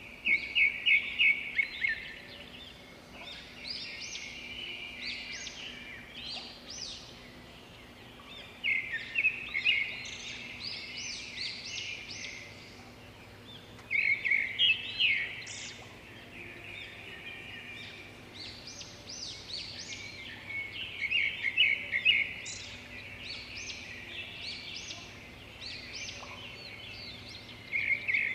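Birds chirping in bursts of quick high chirps several seconds apart, over a faint steady hum.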